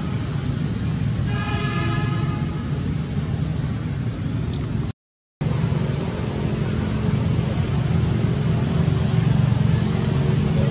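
Steady low motor hum, like a vehicle engine running, with a brief held horn-like tone about a second and a half in and a short dropout near the middle.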